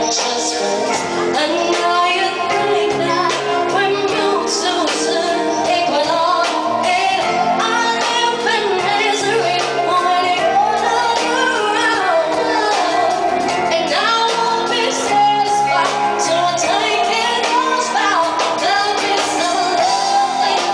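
Live pop-rock band playing, with female vocals singing over electric guitar, bass guitar, keyboard and drums.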